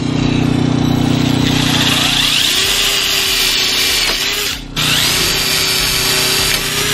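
DeWalt cordless drill running a 1/8 inch bit into a steel greenhouse hoop tube to pre-drill purlin pilot holes. It drills in two runs, about four and a half seconds and then about two seconds, with a brief stop between them.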